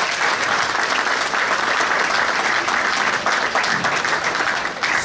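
A crowd applauding: dense, steady hand clapping from many people.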